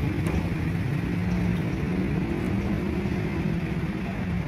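Busy road traffic, cars and motorcycles running, with a steady engine drone.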